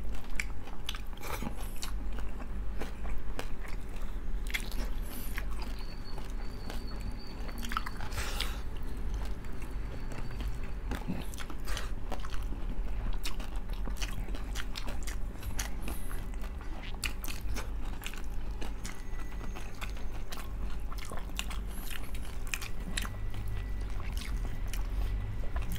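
Close-up chewing and crunching of crispy pata, the deep-fried pork knuckle's crackling skin breaking with many sharp crunches between bites.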